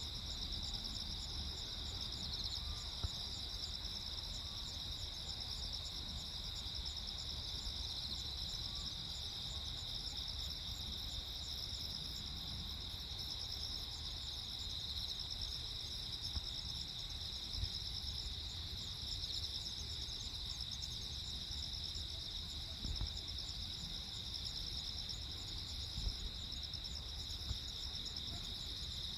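Crickets chirping in steady, overlapping high trills, with a faster pulsed chirping above them, over a low background rumble.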